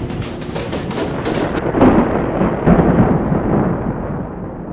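A rolling rumble of thunder that swells about two seconds in and then slowly fades.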